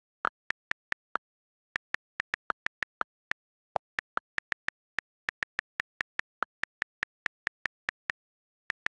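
iPad on-screen keyboard key clicks as text is typed, a quick run of crisp taps at about four to five a second with a brief pause about a second in. One click near the middle is lower-pitched, a different key sound.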